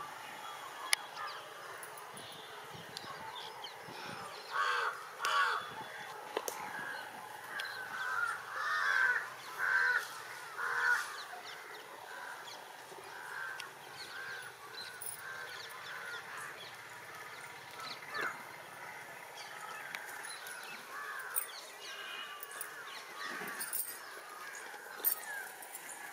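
Honking bird calls, short and repeated, loudest in a run of several calls from about four to eleven seconds in, with fainter calls after, over faint outdoor background noise.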